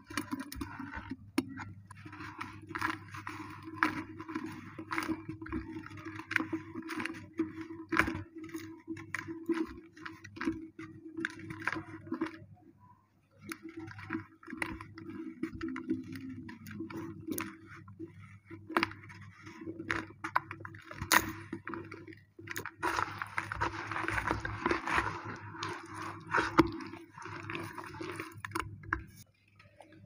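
Hands squeezing and crumbling damp dirt-cement clumps, a dense run of crackling and crunching with many small clicks, pausing briefly a little before halfway and again later. A steady low hum runs underneath.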